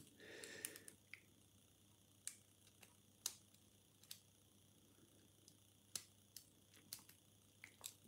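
Faint, scattered metallic clicks of a homemade hacksaw-blade half-diamond pick working the pin stacks of a 6-pin euro cylinder lock, about ten ticks at uneven intervals.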